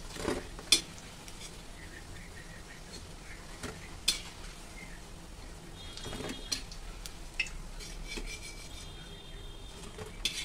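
A metal slotted spoon clinking and scraping against a kadhai and a steel plate as fried kofte are lifted out of the oil, a few sharp clinks in all, over a faint sizzle of hot oil.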